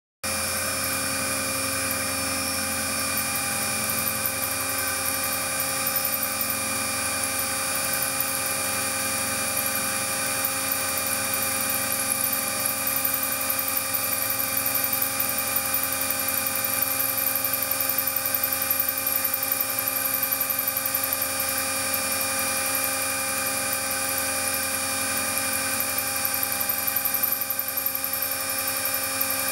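Milling machine, driven by a 1.5 kW synchronous motor through a 1:3 planetary gearbox, cutting a slot to full 16.5 mm depth with a 12 mm end mill. It makes a steady machining whine, several held tones over a hiss of cutting, that starts just after the beginning and holds evenly throughout.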